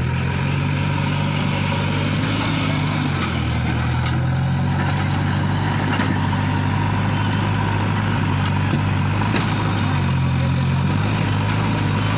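JCB 3DX backhoe loader's diesel engine running as the loader works, its pitch dropping about three seconds in and climbing again near the end as the engine speed changes, with a few faint knocks.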